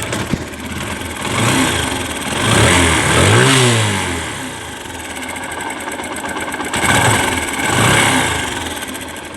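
TVS Apache RTR 150 single-cylinder four-stroke engine running, revved up and falling back a few times. It sounds rough and rattly, with poor throttle response. The mechanic suspects wrong tappet (valve) clearance.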